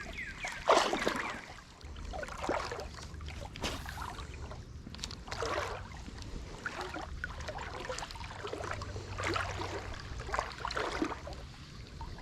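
Creek water splashing and sloshing in irregular strokes every second or two, as the angler moves down the shallow creek.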